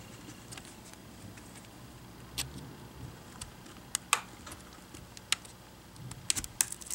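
Scattered small plastic clicks and ticks as a hobby knife and fingertips pry at the seam of an HP Chromebook 11 G5's touchscreen assembly. A few isolated clicks come first, then a quicker run of sharper clicks near the end.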